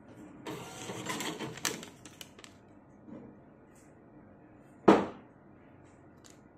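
Thermal ticket printer in a bank queue-number kiosk printing a ticket: a rasping, stuttering buzz about two seconds long, starting half a second in. Nearly five seconds in comes a single sharp rip, the loudest sound, as the paper ticket is torn off.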